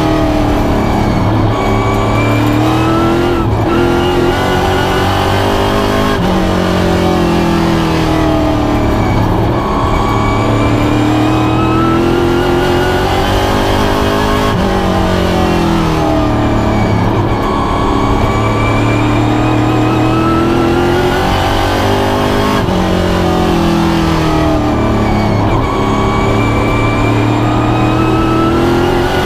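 A pro stock race car's V8 engine at racing speed, heard from inside the cockpit. Its note climbs along each straightaway and drops back going into the turns, again and again over the laps.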